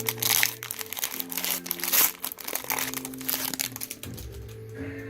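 Plastic wrapper crinkling as a trading card pack is torn open and handled, stopping about four seconds in. Background music with sustained notes plays underneath.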